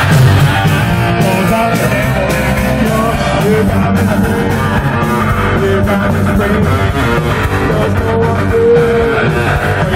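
Loud live rock band playing: electric guitar, bass guitar and drum kit, with singing.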